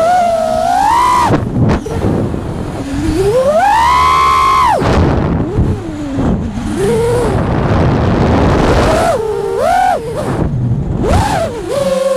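FPV freestyle quadcopter's brushless motors and propellers whining, the pitch swooping up and down again and again as the throttle is punched and cut, over a rush of wind noise.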